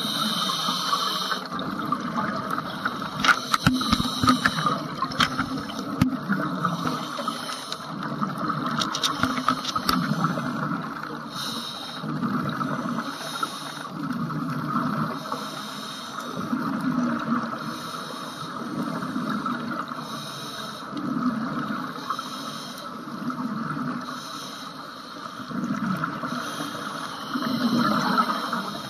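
Scuba regulator breathing heard through an underwater camera housing: a hiss on each inhale and a rumble of bubbles on each exhale, repeating every few seconds. There are a few sharp clicks in the first third.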